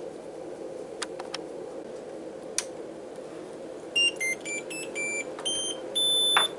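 Anycubic Kobra 3D printer's buzzer playing its power-on jingle, which it plays every time it is switched on: a quick run of about eight electronic beeps at changing pitches, the last one held longest. A few light clicks come before it, over a steady hum.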